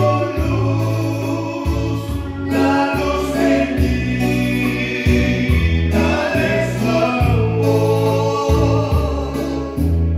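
Live amplified band music: a voice sung into a microphone over a steady bass line and a regular beat, in a gospel style.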